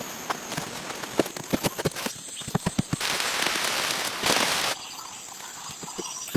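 Irregular series of sharp knocks and clicks, with about two seconds of steady rushing hiss in the middle.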